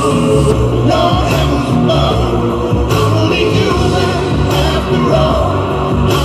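Background pop-rock song with a male singing voice over a steady beat.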